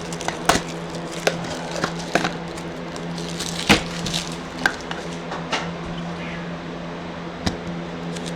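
Small children's scissors snipping open a trading-card pack's plastic wrapper: a handful of sharp snips and crinkles at irregular intervals, the loudest a little past the middle.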